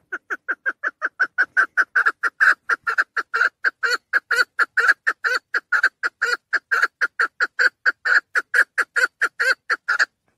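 Female chukar partridge calling: a fast, even series of short notes, about four to five a second, that stops abruptly near the end.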